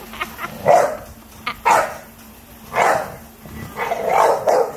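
American Bully dog barking in about four separate barks, the last one drawn out.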